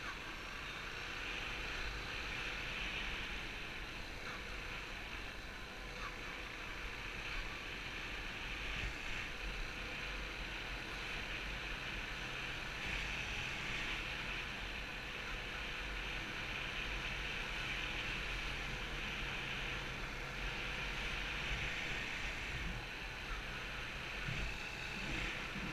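Steady wind rush over a helmet-mounted camera while riding a Yamaha YBR 125 Custom, with the bike's small single-cylinder four-stroke engine running evenly underneath at a cruise.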